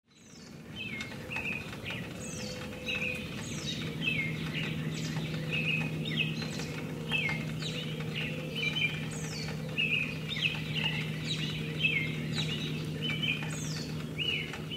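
Woodland songbirds singing and calling, several overlapping: repeated high falling whistles and quick chirps, fading in at the start. A low steady hum joins about four seconds in.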